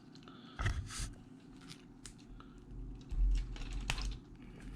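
A cutting tool snipping and scraping the insulation off the ends of thin hookup wires, a handful of short snips and scrapes at irregular intervals with some low handling bumps.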